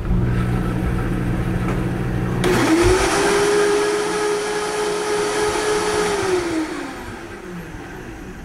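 High-powered countertop blender puréeing steamed spinach with milk. After a low hum, the motor spins up about two and a half seconds in, runs at a steady high pitch with a loud whir, then winds down with a falling pitch near the end.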